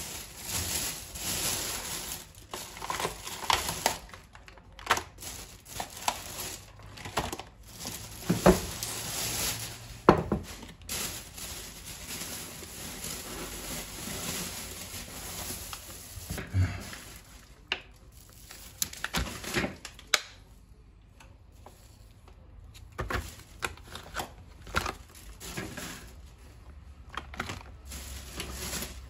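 Household handling sounds: plastic packaging crinkling and rustling, broken by irregular knocks and clinks of dishes and objects being set down.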